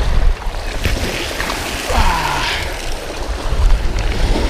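Wind buffeting the microphone over small waves lapping and breaking on a rocky lakeshore. About two seconds in, a short sound falls sharply in pitch.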